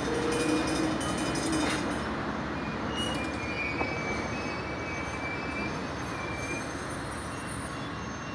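Stainless-steel passenger cars rolling past on the rails, their wheels rumbling steadily and the sound fading as the last car moves away. High squeals from the wheels come in about three seconds in and last a few seconds.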